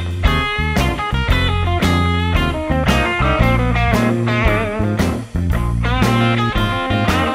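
Outro music: a guitar-led rock tune with wavering, bent notes over a steady bass line and beat.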